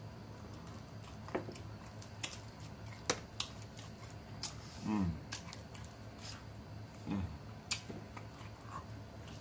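Close-miked eating of chicken wings: wet lip-smacking and chewing clicks scattered throughout, with a couple of brief low grunts that fall in pitch around the middle.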